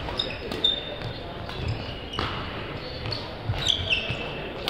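A badminton rally: several sharp racket strikes on the shuttlecock, and shoes squeaking on the wooden court floor, echoing in a large sports hall.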